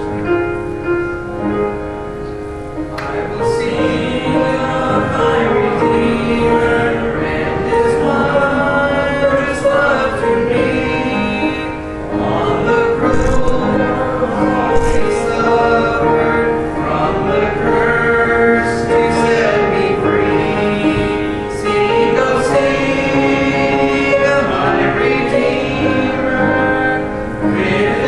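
Church congregation singing a hymn together, a mix of voices held in long sustained notes.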